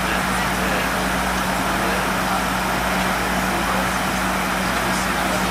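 Steady cabin noise in a Fokker 100 airliner in flight: the rear-mounted Rolls-Royce Tay turbofans and rushing air, with a constant low hum.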